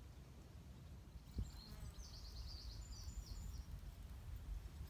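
Faint birdsong: a run of quick, high chirping phrases from about a second in until near the end, over a low wind rumble on the microphone, with one soft thump early on.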